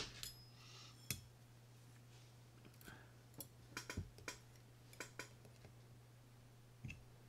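Faint, scattered clicks and light ticks of small metal parts and tools being handled while screws are fitted into a Shimano Citica 200D baitcasting reel body, over a steady low hum.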